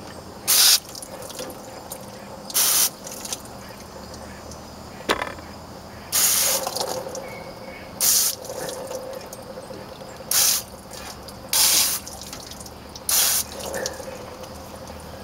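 Garden hose spray nozzle squeezed in about seven short spurts, water hissing onto the engine to rinse off degreaser, using as little water as possible. A single sharp click comes about five seconds in.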